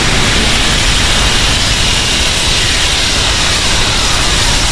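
Edited monster sound effect: a loud, steady rush of dense noise with a faint whine that falls slowly in pitch partway through.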